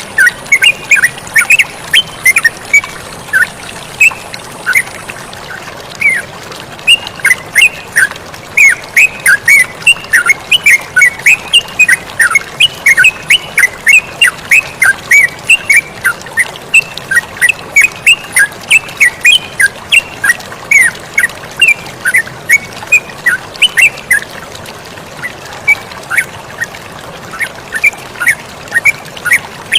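Yellow-vented bulbul (terucukan) calling in rapid, lively runs of short chirps, several a second, with a few brief pauses. Flowing water hisses steadily under the calls.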